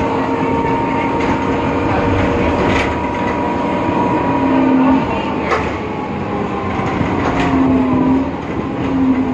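BredaMenariniBus Avancity Plus city bus with a ZF gearbox running on the move: a steady drivetrain rumble with a held low tone that comes and goes, and a few sharp clicks and rattles.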